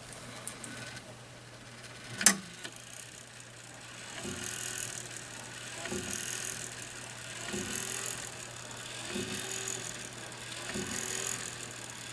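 Grandfather clock's quarter-chime train running with its chiming bars removed, so no chime tones sound: a sharp click about two seconds in as it releases, then whirring gearwork with a soft knock roughly every second and a half as the chime mechanism cycles.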